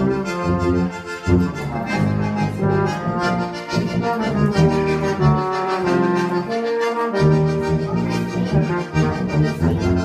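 Instrumental band music with sustained wind-instrument notes that move in melodic steps over a strong low bass part.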